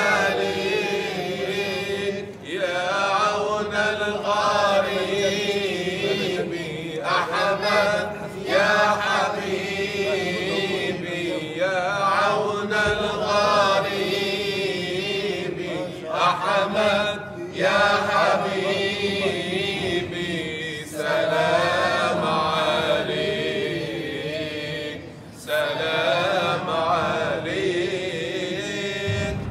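Unaccompanied Arabic nasheed praising the Prophet, sung by a boy with men's voices joining, in sung phrases broken by short breaths every few seconds.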